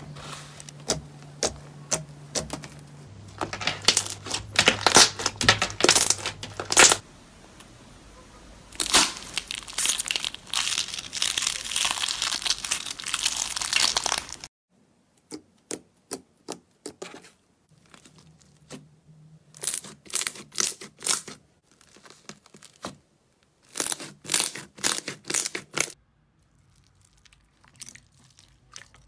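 Slime being torn, squeezed and crushed by hand: dense crackling and tearing that stops abruptly about halfway, then shorter bursts of clicky popping as softer slime is squeezed.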